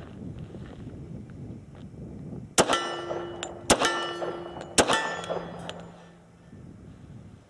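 Three .45 ACP pistol shots from an H&K Mark 23, about a second apart, each followed by a ringing that dies away over about a second.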